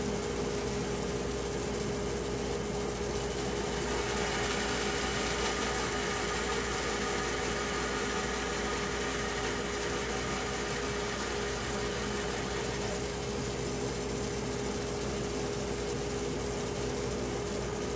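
A woodworking machine milling cherry wood, running with a constant hum. A brighter hiss comes in about four seconds in and fades out around thirteen seconds.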